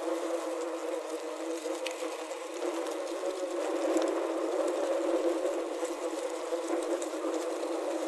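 Many wasps buzzing inside a plastic bottle trap, picked up by a contact microphone clipped to the trap: a dense, steady drone with a few faint ticks.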